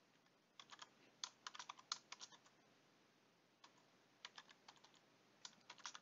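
Faint typing on a computer keyboard: quick runs of keystrokes in three short bursts with brief pauses between them.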